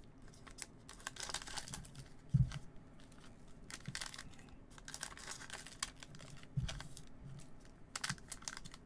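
Foil trading-card packs crinkling as they are snipped open with scissors, with many small clicks and rustles and a couple of soft thumps about two and a half seconds and six and a half seconds in.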